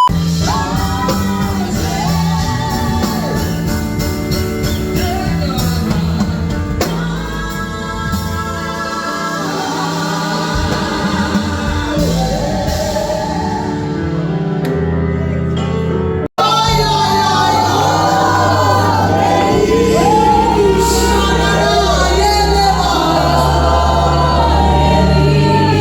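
Music with singing over a steady bass line, cutting out for an instant about sixteen seconds in before carrying on.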